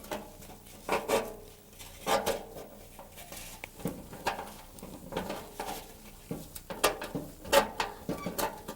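Irregular metallic clinks and taps of hand tools working the rolled edge of a steel car fender, as it is opened up to get at the broken reinforcing wire inside. The sharpest knocks come about a second in, two seconds in and near the end.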